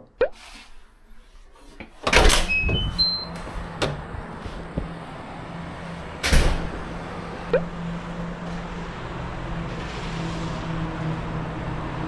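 Outdoor wind noise on action-camera microphones, with a steady hum of road traffic underneath and two loud gusts about two and six seconds in. A short run of rising beeps, an editing sound effect, sounds near the first gust.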